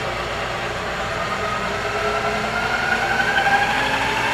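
Wells Index 823 milling machine's 5 HP three-phase spindle motor and drive running, powered through a rotary phase converter. A whine rises steadily in pitch from about a second and a half in as the spindle speed is cranked up, over a steady machine hum.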